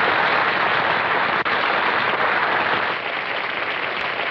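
Crowd applause, dense and steady clapping edited in as a sound effect.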